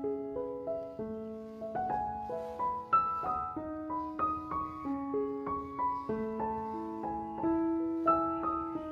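Background music on a piano-like keyboard: a melody of separate notes over held lower notes.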